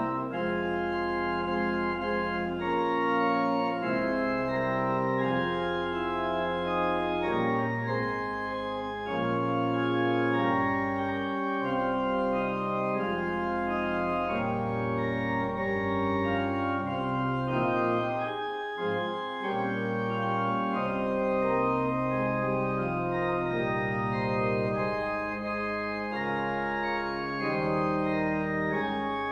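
Church pipe organ playing a slow prelude in sustained chords, the held notes changing every second or so.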